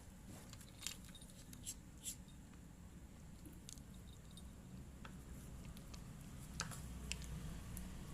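A cat eating: faint, irregular little clicks and smacks of chewing and lapping at its food, over a low steady hum.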